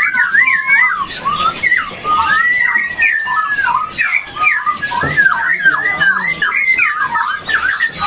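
A caged songbird singing a fast, unbroken run of clear whistled and warbling phrases that sweep up and down in pitch.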